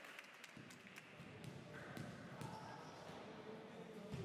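A basketball bounced a few times on a hard gym floor by a player before a free throw, the loudest bounce near the end.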